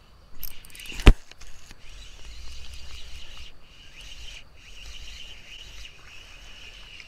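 Insects droning steadily in a high, even pitch, with a few faint bird chirps. About a second in there is a single sharp knock, the loudest sound.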